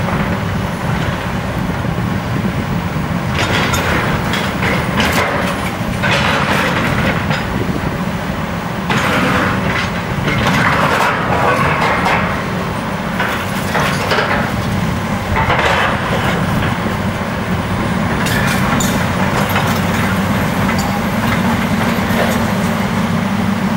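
Hyundai 300LC excavator's diesel engine running steadily, with repeated bouts of crunching and cracking as its bucket and thumb break and drag splintered wood and metal demolition debris.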